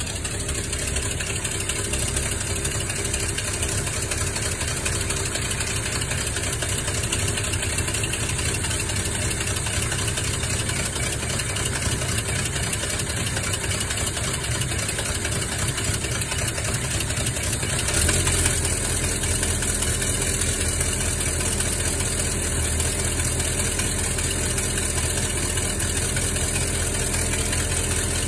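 Carbureted V8 engine of a Grumman step van idling steadily. About 18 seconds in there is a short sharp sound, and after it the engine runs a little louder and deeper.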